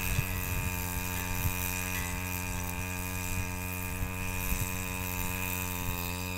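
An engine running steadily at one unchanging speed, a constant drone with a thin high whine above it.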